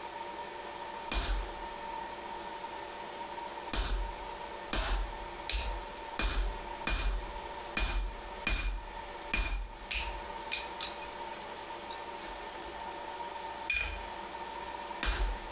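Blacksmith's hammer striking steel on an anvil, about a dozen irregular blows, several with a short metallic ring, with a long gap between the first and second. A steady fan-like hum runs underneath.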